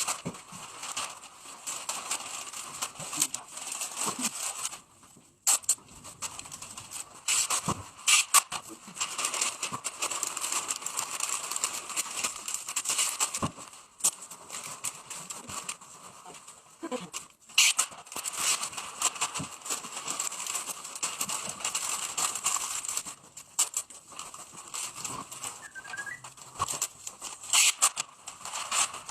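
Masking sheet rustling and crinkling as it is handled and wrapped over a ceiling fan, with frequent sharp crackles and a few brief pauses.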